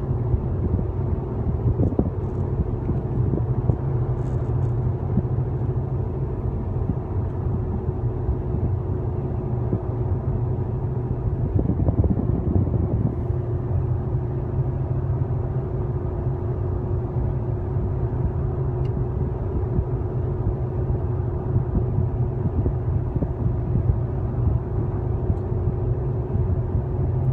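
Steady road and engine noise of a car at highway speed, heard from inside the cabin: a constant low rumble with a steady hum over it.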